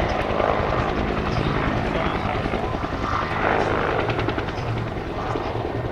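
Bell UH-1H Iroquois (Huey) helicopter in flight, the rapid rhythmic beat of its two-bladed main rotor over the whine of its turboshaft engine. It grows gradually fainter as it flies away.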